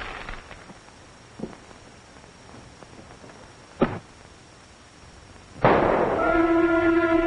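A few faint knocks, then a single sharp bang about four seconds in. Near the end a loud crash opens into a held chord of film-score music.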